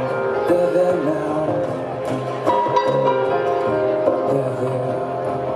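Live band music: a strummed acoustic guitar with cello held under it and band backing, amplified through an outdoor PA.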